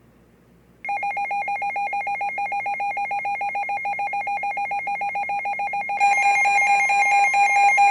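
Emergency alert alarm tone: a loud, rapid electronic trill of beeps, about ten a second, starting about a second in. About six seconds in it grows louder as a second, higher tone joins it.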